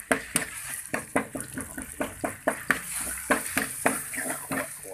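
Metal spoon scraping and knocking against a wok, about four strikes a second, as chili curry paste is stir-fried in hot oil over a light sizzle.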